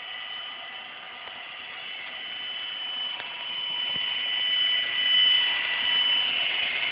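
Small electric motor of a Hobby Engine Southampton radio-controlled tug boat running with a steady high whine that grows louder.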